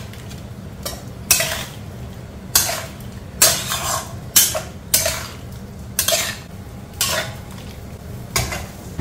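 Spatula scraping and knocking against a kadai while potatoes and peas in masala are stirred: short, irregular strokes about once a second over a faint steady low hum.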